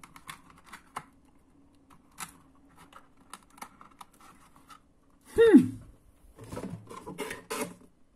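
Cardboard packaging being handled and scraped while an empty toy box is searched for a missing part: scattered scratchy rustles and light clicks. About five seconds in, a short voiced sound falls steeply in pitch.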